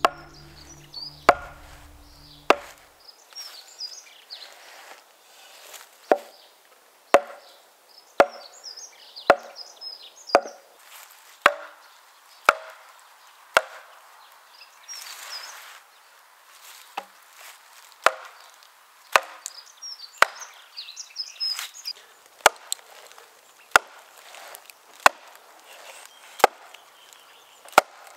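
Hand-forged T-shaped axe, with a wrought iron body and steel bit, chopping along a cleaved ash log to hew it into a plank. The blows come steadily, about once a second.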